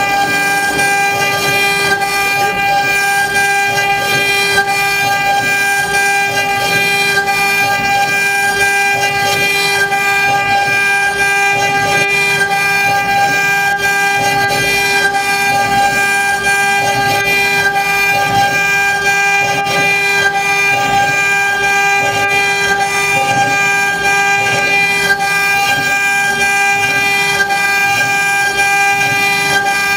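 CNC router (Twitte CNC-1325) milling a relief into a wooden board at a 6000 mm/min feed: the high-speed spindle gives a steady, high whine with several overtones, over the rough noise of the cutter in the wood.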